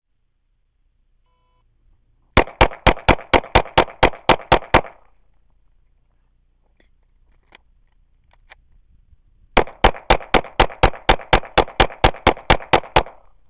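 A 9mm semi-automatic pistol fired rapidly in two strings: about a dozen shots, then after a pause of about five seconds holding a few faint clicks, about sixteen more, roughly five shots a second.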